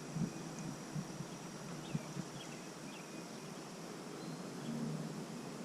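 Quiet outdoor river ambience: a steady background hiss with a thin steady high tone, faint short bird chirps scattered through, and a few soft knocks in the first two seconds.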